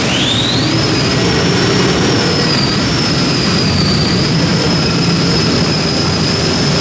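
Multi-engine unlimited pulling tractor running at full throttle as it launches and pulls the sled. The engines make a loud, dense noise, with a high whine that rises in the first second and then holds steady.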